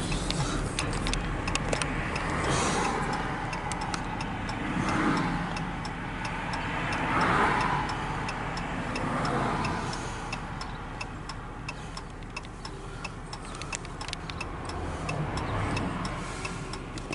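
CSX freight train approaching and passing, with a rumble that swells and fades several times, along with a steady, regular ticking.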